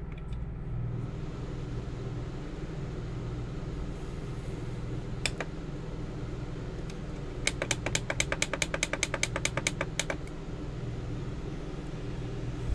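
Steady hum of the RV's Onan 5500 W generator and air conditioner running. A single click about five seconds in, then past the middle a quick run of about fifteen clicks over two seconds as the wall thermostat's down button is pressed repeatedly to lower the set temperature.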